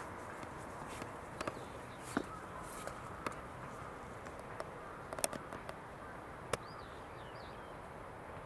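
Outdoor ambience: a steady low hiss with scattered sharp clicks and ticks, and a few short bird chirps about seven seconds in.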